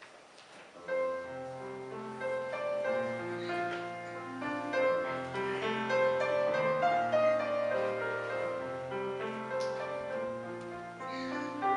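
Piano playing a slow instrumental passage of held chords, starting about a second in.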